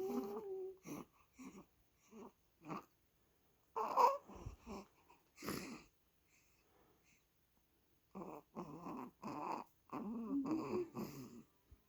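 A newborn baby hiccuping: a string of short, sudden hiccups, the loudest about four seconds in, then a pause of a couple of seconds and a denser run of quick breathy grunts near the end.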